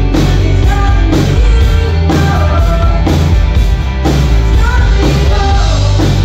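Live country-pop band playing a song with a steady beat: a female lead vocal over strummed acoustic guitar, electric bass and drums.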